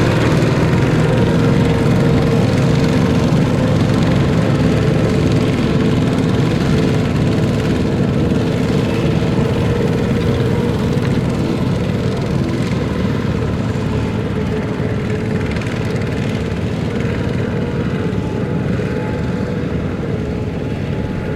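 Tractor engine running steadily, a continuous drone that slowly grows quieter.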